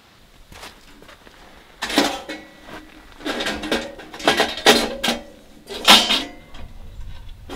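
Folding stainless steel tent wood stove being unfolded and set up: a series of sharp metal clanks and rattles of its sheet-metal panels, starting about two seconds in, some with a brief ring.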